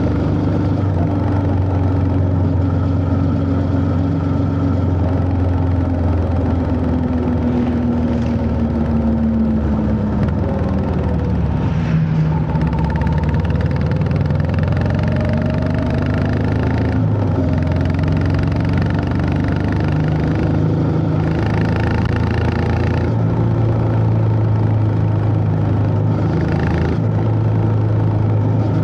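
Honda CB350 H'ness's single-cylinder engine under way. The engine note falls steadily over the first ten seconds as the bike slows, then rises again as it accelerates, with several short breaks in the note later on.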